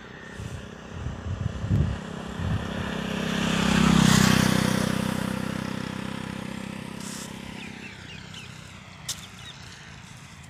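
A motor vehicle's engine passing by: it grows louder over a second or two, is loudest about four seconds in, then slowly fades away. A few soft knocks come before it.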